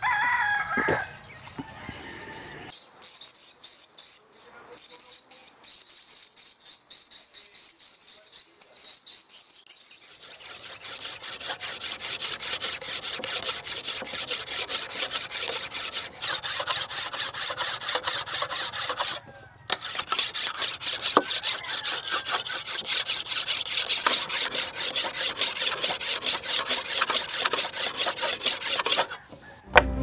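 A rooster crows near the start. From about a third of the way in, a bolo knife blade is sharpened with a file: fast, continuous scraping of metal on metal, broken by two brief gaps.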